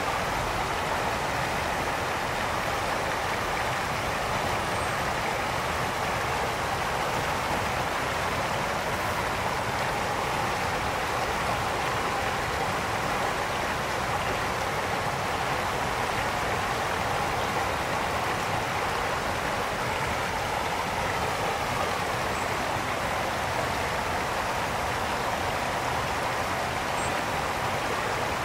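Brook water flowing in a steady, even rush.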